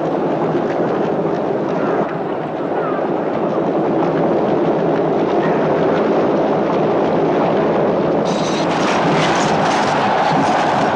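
Teams of galloping horses and rattling chariot wheels make a steady, dense din, with a crowd cheering under it. From about eight seconds in, a rapid run of sharp clattering strikes joins in.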